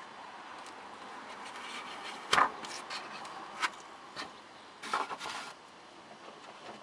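Handling noises: a few short scrapes and knocks, the loudest about two and a half seconds in and a cluster around five seconds in.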